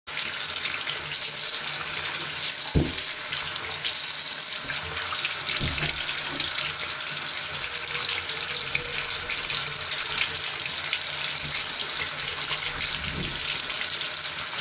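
Tap water running steadily into a sink, with a few brief low knocks.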